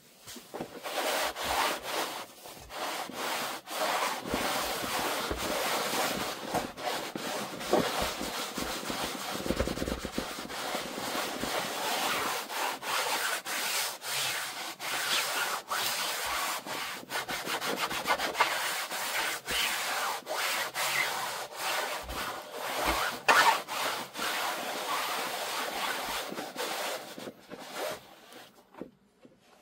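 A cloth rubbing over the ribbed cone of an 18-inch loudspeaker as it is wiped clean: continuous scratchy rubbing with frequent light knocks from handling the speaker, trailing off near the end.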